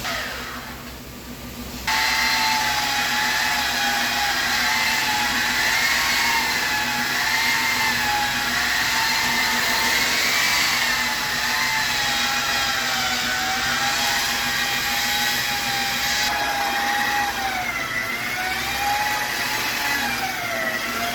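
Electric rotary polisher buffing with rubbing compound: the motor winds down at the start, then switches on about two seconds in and runs steadily with a whine that wavers slightly in pitch.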